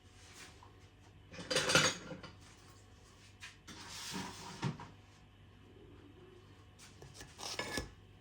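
Spatula scraping under freshly baked puff pastry slices and lifting them off the baking tray, in three bouts, the loudest about a second and a half in.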